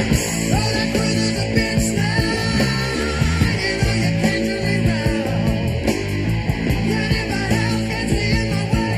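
Rock music with electric guitar, drums and a singing voice.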